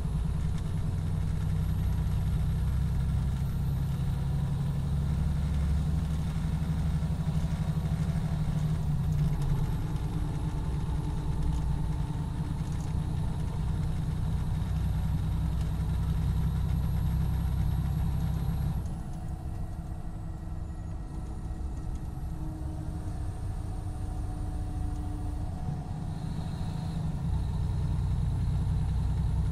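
A 2017 MCI D4500CT coach's Cummins ISX12 inline-six diesel idling steadily while parked. About two-thirds of the way through, the sound drops and gets quieter, then comes back up to its earlier level a couple of seconds before the end.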